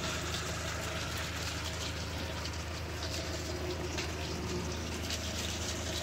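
A herd of cattle walking along a gravel road, hooves scuffing and clicking in a steady shuffle, over the low steady hum of a vehicle engine running.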